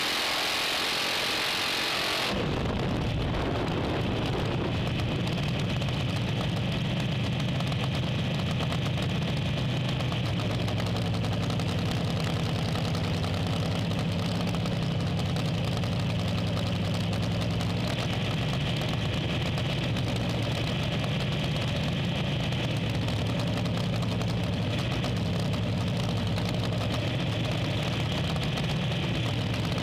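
A loud hiss that cuts off about two seconds in, then a drag race car's engine idling steadily with a deep, even note.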